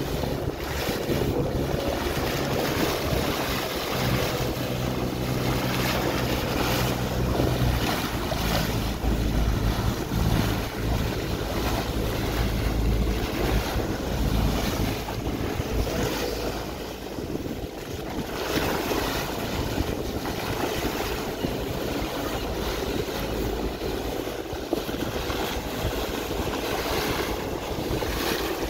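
Water rushing and splashing along the hull of a moving boat at the bow, with wind buffeting the microphone and a steady low hum from the boat's engine, which is plainer in the first half.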